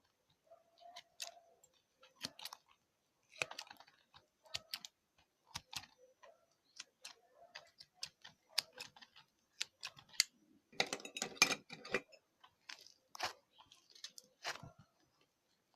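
Hands squishing and poking slime: irregular sticky clicks and small pops, with a denser run of crackling about eleven seconds in.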